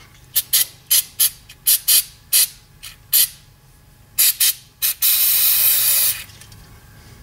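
Aerosol brake cleaner being sprayed into a drum brake wheel cylinder to flush out its bore. It comes as a quick series of about a dozen short squirts, then one longer spray lasting a bit over a second.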